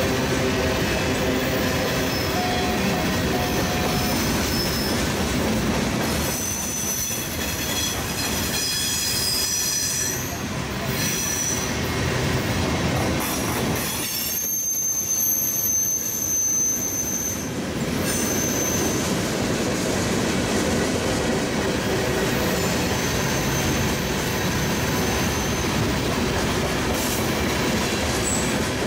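Freight train cars rolling steadily past, steel wheels rumbling on the rails, with thin high-pitched wheel squeals that come and go through the middle stretch.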